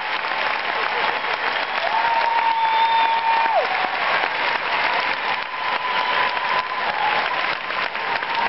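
Large arena crowd applauding steadily. About two seconds in, a long held call rises out of the crowd and falls in pitch as it ends.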